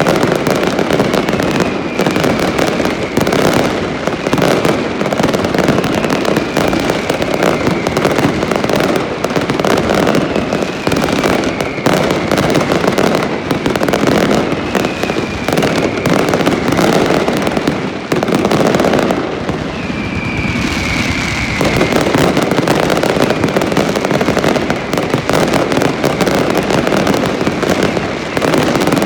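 Festival fireworks in a dense, continuous barrage of bangs and crackling, with whistling rockets gliding slightly down in pitch every second or two.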